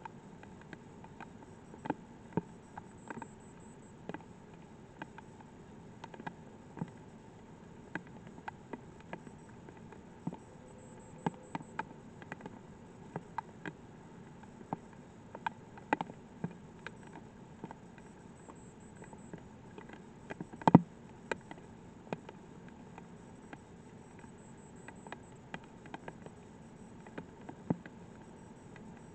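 Light rain: single raindrops tapping irregularly, about one or two a second, over a faint steady hiss. One tap is much louder about two-thirds of the way through.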